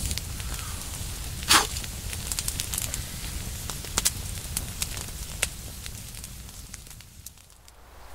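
Wood fire crackling, with irregular sharp pops and snaps and one loud pop about a second and a half in; it fades down near the end.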